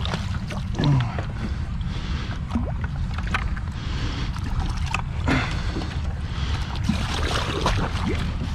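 Water sloshing and splashing against a small metal boat, with scattered knocks on the hull and a few short gurgles, as a concrete-weighted bucket with an aeration diffuser is lowered over the side into the pond. A steady low rumble runs underneath.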